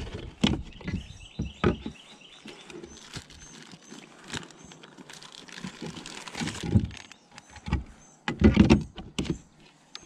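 Gear being handled in a plastic kayak: knocks and clatter against the hull, with rustling in the middle as a soft-plastic bait packet is pulled out. The loudest thumps come near the end.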